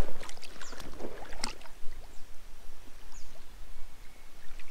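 Water sloshing and small splashes as rubber boots wade through a shallow creek and a caught fish is lowered back into the water, with a couple of sharp knocks about a second in.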